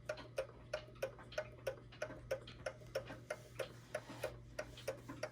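1929 E. Ingraham tambour mantel clock's old, worn movement ticking steadily, about three ticks a second.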